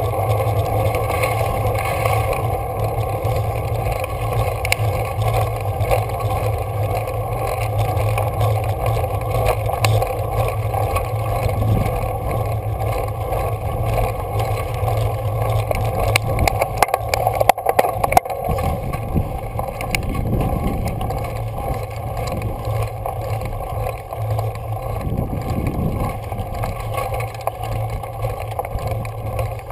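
Steady rumble of wind and tyre noise from a road bike climbing a rough, gravelly mountain road, with a brief cluster of knocks about 17 seconds in.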